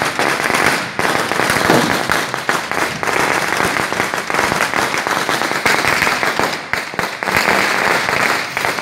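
A long string of firecrackers going off in a loud, rapid, unbroken crackle of sharp bangs.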